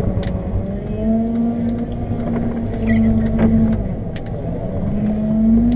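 Lundberg loader's diesel engine working under load as its front plough pushes snow, revving up about a second in, easing near four seconds and revving up again near the end. Scattered short clicks and knocks sound over the engine.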